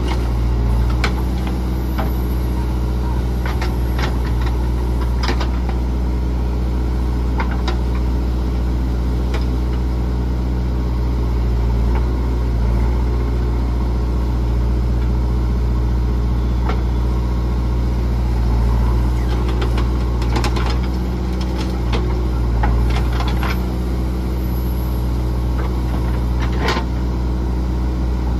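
JCB 3DX backhoe loader's diesel engine running steadily while the backhoe digs and dumps soil, with scattered short knocks from the bucket and arm working, most of them about 1, 4 and 5 seconds in and again between about 20 and 27 seconds.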